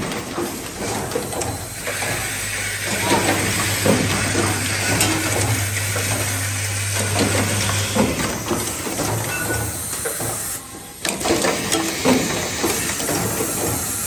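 Automatic plug-insert assembly machine running: a dense stream of clicks and clacks from its pneumatic stations, with hissing compressed air. A steady low hum runs from about two seconds in until about eight seconds in.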